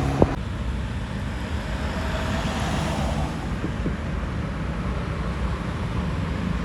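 Steady rumble of a running bus engine and road traffic, with wind on the microphone and no horn tune; a single sharp click just after the start.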